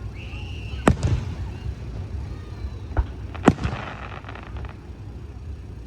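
Aerial fireworks bursting: a bang about a second in, a smaller one near three seconds and the loudest half a second after it, followed by about a second of crackling.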